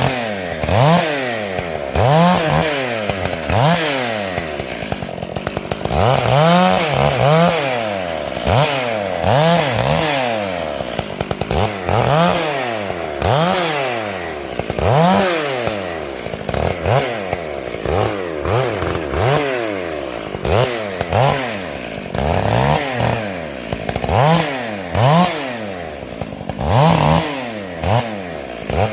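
Stihl MS 461 two-stroke chainsaw revving up and dropping back again and again, about once a second.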